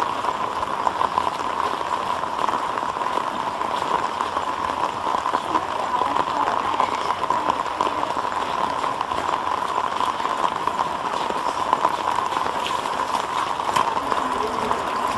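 Steady rain falling on wet ground and puddles, a dense, even hiss of drops.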